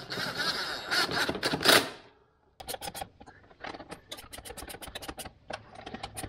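Socket ratchet on a long extension clicking as a screw is run in: a dense run of fast clicking, then, after a short pause, a steady series of separate clicks, about four or five a second.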